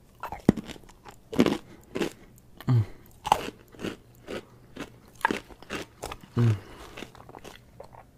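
Close-miked crunching and chewing of chunks of cornstarch eaten by the spoonful: a run of sharp, irregular crunches, one or two a second, with softer chewing between them.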